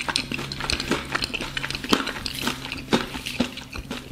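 Crisp fried crust of a sweet potato dumpling (gato patate) crackling in scattered small clicks as it is pulled apart by hand.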